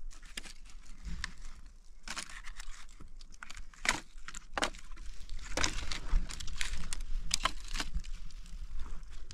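Irregular crinkling, rustling and scraping of material being handled, with scattered sharp clicks, busier in the second half.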